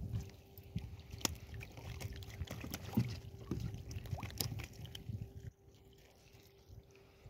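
Water splashing and sloshing, with scattered sharp clicks and knocks, dying down about five and a half seconds in; a faint steady hum runs underneath.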